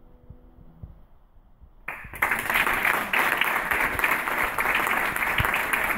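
The last notes of a grand piano die away, then audience applause starts suddenly about two seconds in and carries on steadily.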